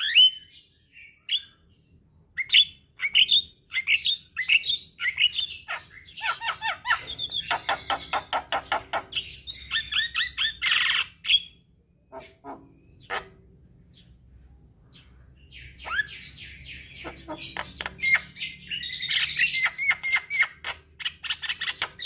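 Javan myna singing in rapid runs of chattering notes. The song falls to a few scattered notes for several seconds just past halfway, then starts again.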